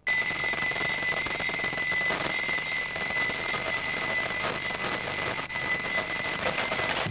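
Twin-bell alarm clock ringing steadily without a break, starting suddenly.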